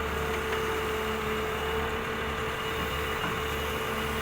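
Engine of concrete-pouring machinery running steadily, with a constant hum and a steady whining tone.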